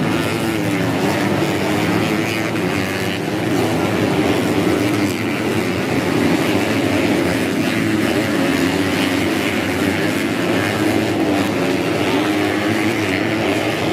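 Modified underbone (bebek) race motorcycles on a dirt grasstrack, several engines running hard at once, their pitch rising and falling as the riders rev through the course.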